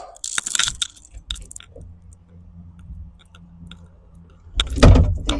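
Flathead screwdriver working a hose clamp: scattered metal clicks and scraping, with a louder clunk and crackle near the end.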